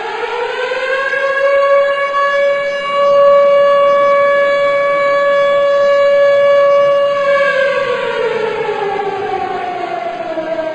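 Civil defence siren sounding as the signal for the one-minute silence of remembrance: it winds up in pitch, holds a steady wail for about six seconds, then falls in pitch from about seven seconds in.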